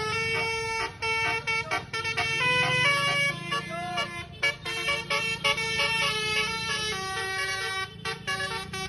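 Basuri multi-tone bus air horns playing a telolet melody: a quick run of changing notes, several tones sounding together, over the low running of a bus engine.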